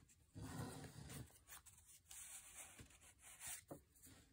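Faint rubbing and rustling of paper as the pages and a paper flap of a handmade junk journal are handled by hand, strongest for about a second near the start, with a few light rustles after.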